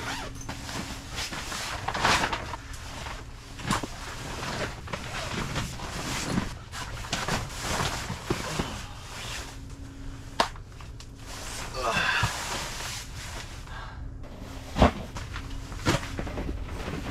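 Rustling of tent fabric and clothing with scattered clicks and knocks as camping gear is handled and moved about; a sharp knock about ten seconds in and another near the end stand out. A steady low hum runs underneath.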